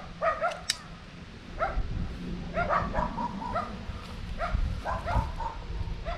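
A dog barking in short calls, coming in clusters of two to four a few times over, above a low steady hum.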